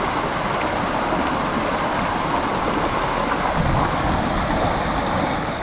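Mountain river rushing over rock ledges and boulders in shallow rapids: a steady rush of water.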